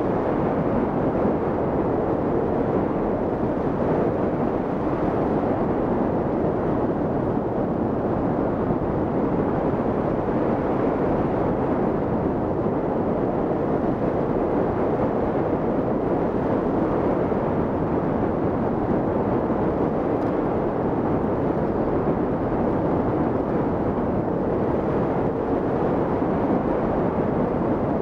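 Steady rush of airflow over the microphone during hang glider flight, an even noise with no tones or breaks.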